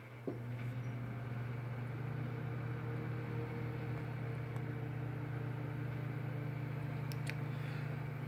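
Microwave oven running, a steady low hum that comes on with a click about a third of a second in.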